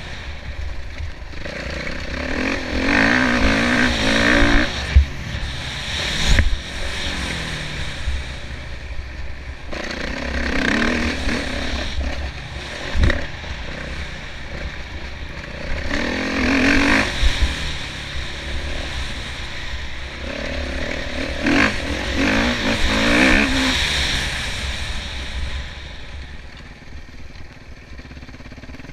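Kawasaki KX450F single-cylinder four-stroke motocross engine revving hard in about four bursts and dropping back between them as the bike accelerates and slows around a dirt track, heard from the rider's helmet. A few sharp knocks come in between, with a steady low rumble of wind on the microphone underneath.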